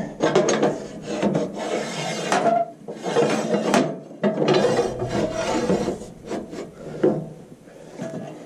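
Rusty 3/4-inch steel pipe being pushed through the vise of a metal-cutting bandsaw, scraping against the steel in several uneven strokes, with a sharper knock near the end.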